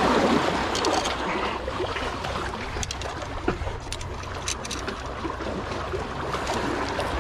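Steady wash of water along a rocky shore, with scattered close clicks and rustles as a landed pink salmon is handled on the rocks.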